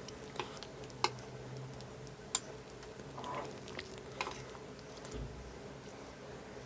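Hotpot broth simmering with a soft bubbling hiss over a steady low hum, broken by a few sharp clicks of chopsticks or utensils against tableware.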